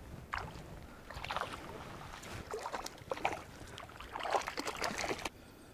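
Water splashing and sloshing in irregular bursts, cutting off abruptly near the end.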